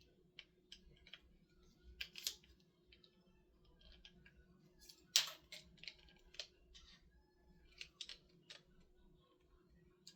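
Scattered light clicks and taps at irregular intervals, the loudest about five seconds in, over a faint steady hum.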